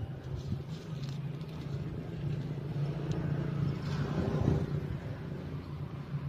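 Papery rustling and tearing of a corn husk being peeled back by hand, loudest around the middle, over a steady low hum.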